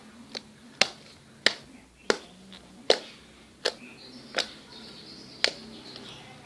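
Sticky slime being squeezed and stretched by hand, giving sharp popping clicks about eight times, a little more than once a second.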